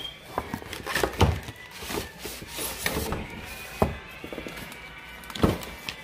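Cardboard box and styrofoam packing being handled and opened, with scattered knocks and rubs.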